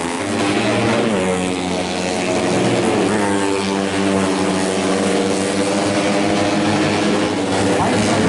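Four-stroke underbone racing motorcycles (tuned, up to 150cc) at full throttle, their engine notes rising and falling as they rev and change gear, several bikes overlapping.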